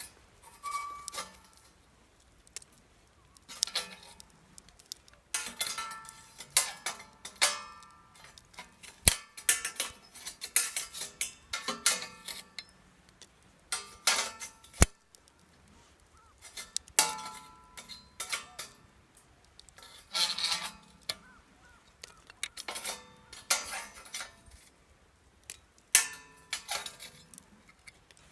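Metal camping gear being handled and packed away: repeated clinks and clanks of metal parts knocking together, some ringing briefly, with short pauses between handlings.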